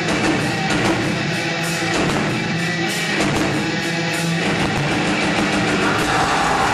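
Heavy metal band playing live: distorted electric guitars and bass over a drum kit, loud and unbroken.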